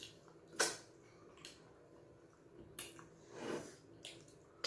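Close-up eating sounds of fufu and light soup eaten by hand: wet squishing, slurps and lip smacks. A sharp smack about half a second in is the loudest, with softer ones and a longer slurp later.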